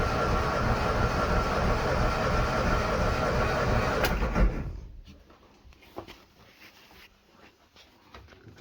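Morris Minor's four-cylinder engine being cranked on the starter motor with all spark plugs out, for a compression test on cylinder 2. The steady cranking runs for about four and a half seconds, then winds down and stops, followed by a few faint clicks.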